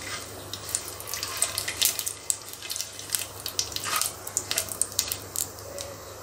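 Mustard seeds sizzling and popping in hot ghee in a nonstick pan, with irregular sharp crackles several times a second as they are stirred: the spluttering of a tadka, the sign that the fat is hot enough.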